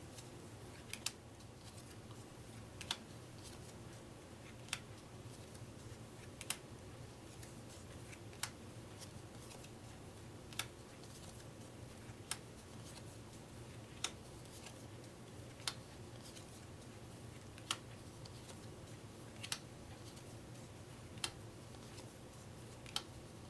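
Sushi Go playing cards being laid down one at a time onto a table as they are counted out, each card making a sharp snap, about one every two seconds, thirteen times, over a faint steady low hum.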